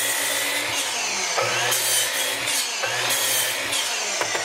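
Electric sliding compound miter saw running and cutting through wood, its motor whine dipping and recovering a few times as the blade is loaded.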